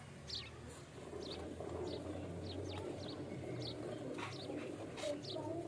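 Hand-milking a cow: streams of milk squirting from the teats into a steel bucket, making a steady frothy hiss. Small birds chirp over it, short high calls two or three times a second.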